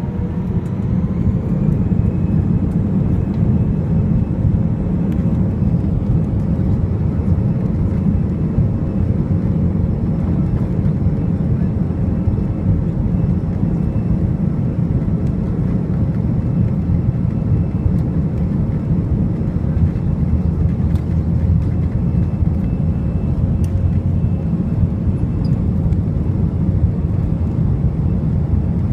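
Cabin noise of an Airbus A319 rolling on the ground for takeoff: a loud steady rumble with the jet engines' whine, which rises a little in the first couple of seconds and then holds steady.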